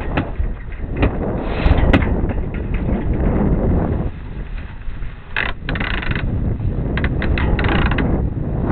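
Wind buffeting the microphone on a sailboat, with a few sharp clicks early on and bursts of sailcloth rustling and flapping about halfway through and again near the end.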